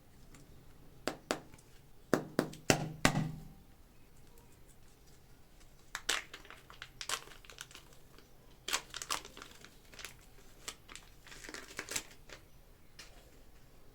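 Plastic clay packaging crinkling and tearing as a pack of super clay is unwrapped, in several separate clusters of sharp crackles. The loudest cluster comes about two to three seconds in.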